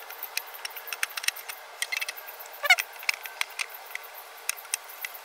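Small sharp clicks and taps of a computer power supply being handled and taken apart, with one short wavering squeak that rises in pitch just past halfway.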